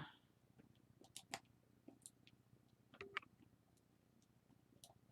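Faint, scattered small clicks and ticks, about half a dozen, from a camera lens being handled and worked apart with precision tools.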